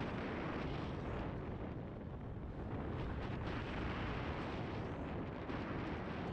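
Steady rush of wind over a helmet-mounted camera's microphone, mixed with the tyre and trail noise of a mountain bike riding at speed, with a few faint knocks.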